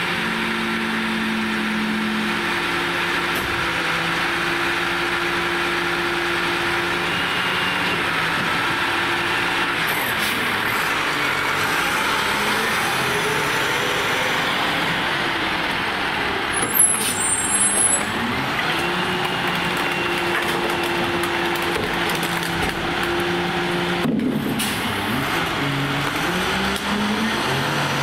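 Freightliner recycling truck's engine running as the truck drives slowly past and pulls up, its pitch rising and falling as it moves off and slows. Brakes squeal briefly partway through.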